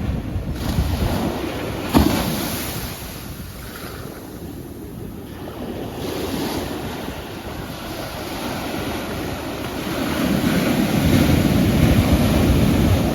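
Ocean waves washing on a shore. One wave breaks suddenly about two seconds in and fades away, and another swell builds and surges near the end.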